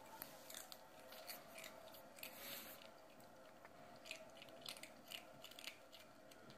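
A kitten crunching potato chips: faint, irregular crisp crunches coming in clusters.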